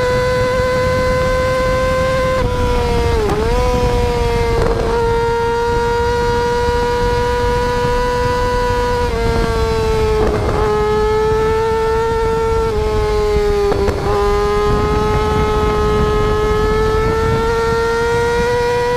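Small motorcycle engine held at high, steady revs while the bike rides on its back wheel, a sustained high whine with brief dips where the throttle eases off and comes back.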